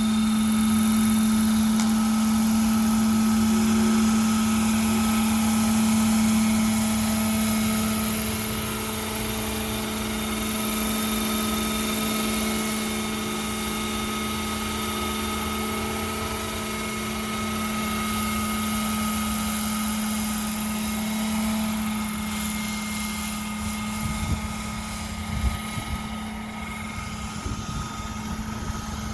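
Hirobo Dauphin radio-controlled scale helicopter in flight, its motor and rotors making a steady high-pitched whine. The sound eases off a little about two-thirds of the way through, with a few brief thumps near the end.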